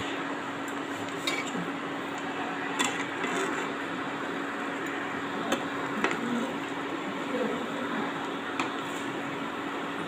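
Boiled eggs sizzling in hot oil in a nonstick pan, with a metal spatula clicking against the pan a few times as it turns them.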